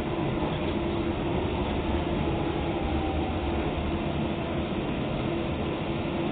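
Docklands Light Railway train moving alongside a station platform, heard from inside the carriage: a steady rumble of wheels and motors with a faint hum.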